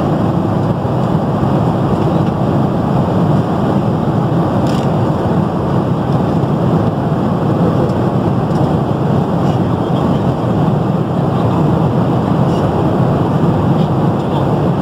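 Steady cabin noise of an airliner in flight: an even, unbroken low rush of engine and airflow noise.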